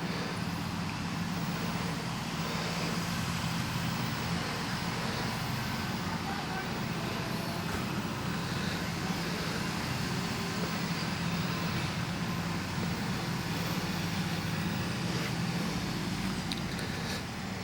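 A steady engine hum, a motor running at constant speed, over a hiss of outdoor noise.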